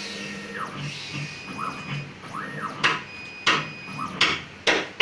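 CNC router stepper motors whining as the axes move, each move climbing in pitch, holding, then dropping back. In the second half come four sharp knocks, the loudest sounds.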